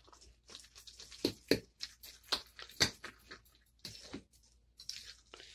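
A spoon stirring chopped onions into thick ground urad dal batter in a glass bowl: irregular wet squelches with light clicks, pausing briefly a little past the middle.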